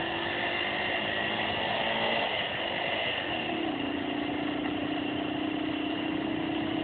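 125 cc motorbike engine running steadily under way on the sand. Its note drops a little about three and a half seconds in, then holds even.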